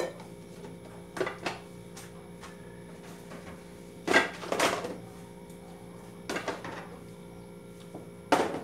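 Kitchen items knocking and clattering as they are moved in and out of a lower cabinet: five or so short clusters of knocks, the loudest pair about four seconds in. A steady low hum runs underneath.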